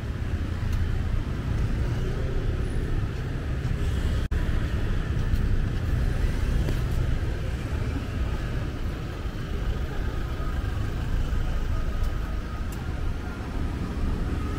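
Busy street traffic: a steady rumble of passing cars and motorbikes.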